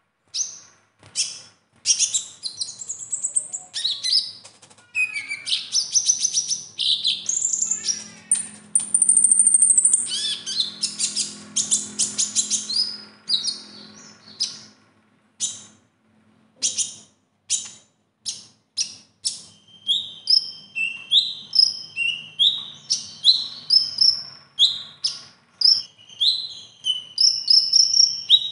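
Male kolibri ninja (purple-throated sunbird) singing a loud, fast run of high chirps, sweeps and trills, its song stuffed with phrases learned from other birds. From about twenty seconds in it repeats a quick rising note over and over.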